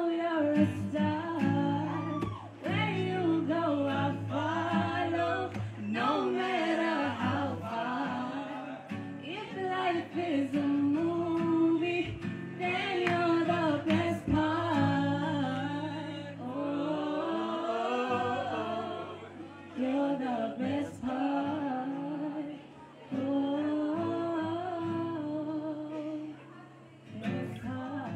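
A woman singing with a live acoustic guitar accompaniment, her voice gliding up and down in long melodic runs over the held guitar chords.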